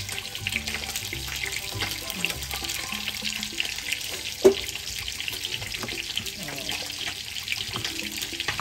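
Fish frying in hot oil, a steady crackling sizzle, with one sharp knock about halfway through.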